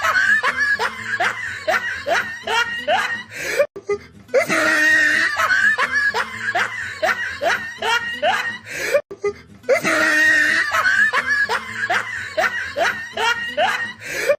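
Evil laugh sound effect, looped three times back to back. Each pass is a dense opening burst and then a run of rhythmic "ha" pulses, about four a second, and each stops abruptly before the next begins.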